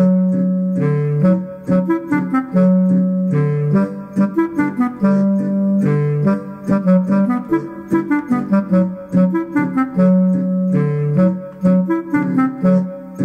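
Bavarian Ländler folk dance tune played on an accordion fitted with a Limex MIDI system: the melody comes out in a deep clarinet sound over a MIDI helicon bass and guitar-chord accompaniment, in a steady, evenly pulsed rhythm.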